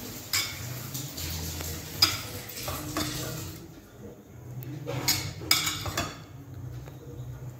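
Steel spoon scraping and clinking against a nonstick kadai while spreading a lump of butter around the pan, with a few sharp clinks about half a second, two seconds, three seconds and five to six seconds in.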